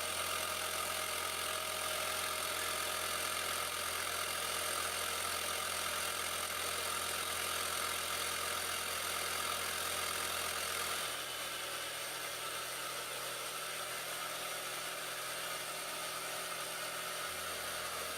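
Small homemade air compressor's motor running steadily, a hum with a high hiss; the low part of the hum drops away about eleven seconds in.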